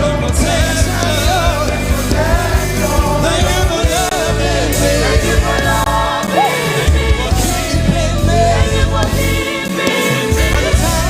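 Live gospel band and singers performing a praise song, with a sustained bass line and cymbals under wavering sung lines; the bass drops out briefly twice.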